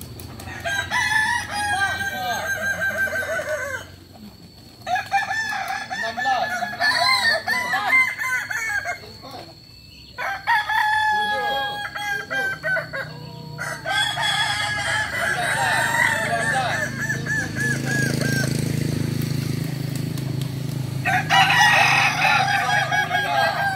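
Several kukuak balenggek roosters crowing in turn and overlapping. Each crow is a long run of stepped, wavering notes lasting a few seconds, with short lulls about 4 and 10 seconds in.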